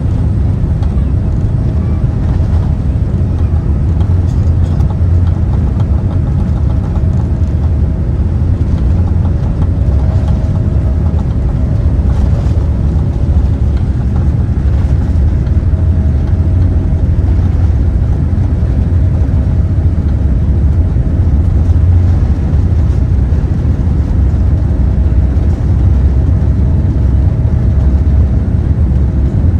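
Steady, loud, deep rumble of a Boeing 787-9's engines and rushing air, heard inside the passenger cabin at high thrust after takeoff.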